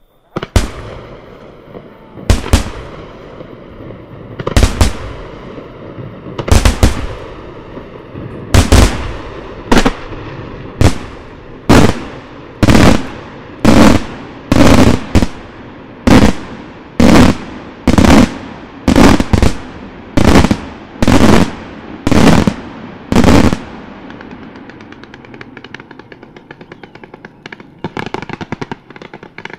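Fireworks display: loud aerial shell bursts, each with an echoing tail, about two seconds apart at first and then about one a second. After that the bangs give way to a dense crackle of smaller fireworks.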